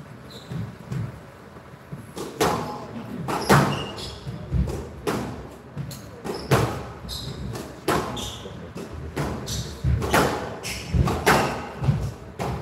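Squash rally: the ball cracking off the rackets and the walls of a glass court in a quick irregular series of sharp hits, with short squeaks of players' shoes on the court floor in between.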